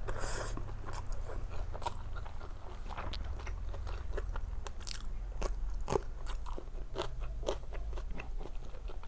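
Close-miked eating: a person biting and chewing food, with many short crisp crunching clicks scattered irregularly, and a brief hiss near the start.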